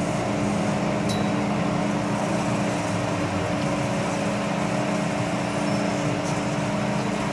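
Steady hum inside an MTR Island Line M-train car, with a few steady tones that neither rise nor fall over a wash of running and ventilation noise.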